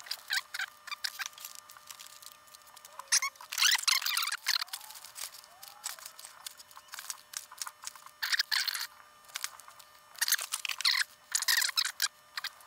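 Crinkling and rustling of small plastic and paper component bags being handled and sorted, in several bursts, with a faint steady tone underneath.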